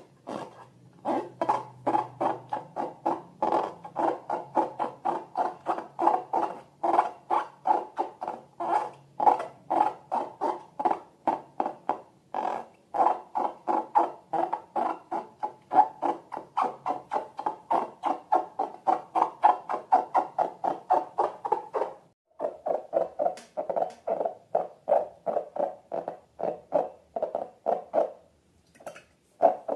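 Rubber balloon squeaking over and over in an even rhythm, about three squeaks a second. After a brief pause a little past the middle, the squeaks go on lower in pitch.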